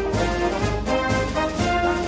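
Music with held brass notes over a steady beat.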